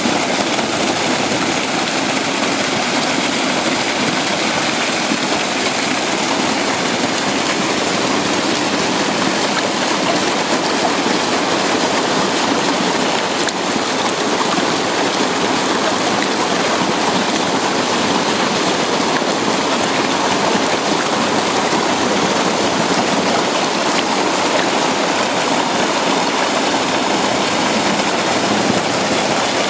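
Spring water gushing in a thick sheet over a rounded boulder and splashing onto the rocks below: a steady, unbroken rushing.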